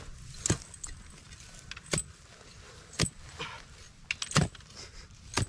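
A long-handled hoe striking red earth as it digs open a burrow: about five sharp chops roughly a second apart, each with a light metallic clink from the blade.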